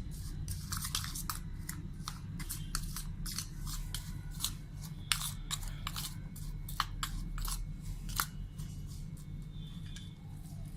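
Chopped onion, tomato and chilli being stirred with spices and melted butter in a microwave bowl: irregular clicks and scrapes of the utensil against the bowl, several a second, over a steady low hum.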